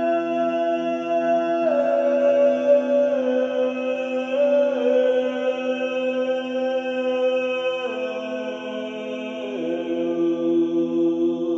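A chanting voice holds long, sustained notes that step to a new pitch every second or two, over the steady ringing drone of a crystal singing bowl.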